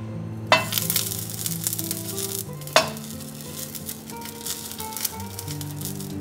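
Small whole fish laid into hot oil in a frying pan: a sudden loud sizzle as the first hits the pan about half a second in, and another near three seconds as the second goes in. The oil then sizzles and crackles steadily, over soft background music.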